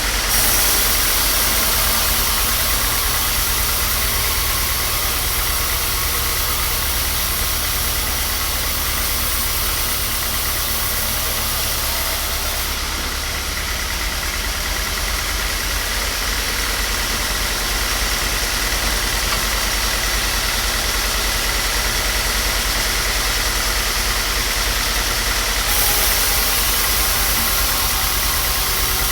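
Workshop machine running steadily with a deep, fast-pulsing rumble under a broad hiss. The hiss drops back about thirteen seconds in and comes back near the end.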